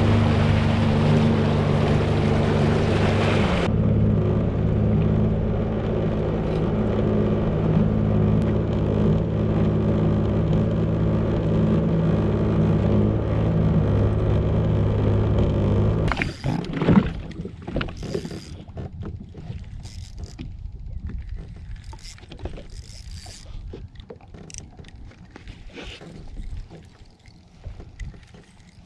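Sea-Doo Fish Pro jet ski engine running steadily at low speed, with water rushing past the hull for the first few seconds. About sixteen seconds in the engine stops, leaving faint water sounds and small scattered knocks and clicks.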